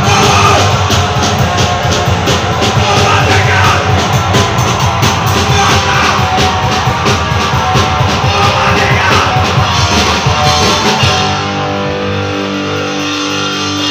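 Punk rock band playing live through a PA: distorted electric guitars, bass and fast drumming with vocals. About eleven seconds in the drums stop and the guitar chords ring on alone.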